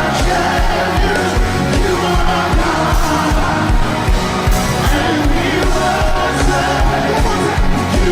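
Live gospel praise music: a band playing a steady beat with singing over it.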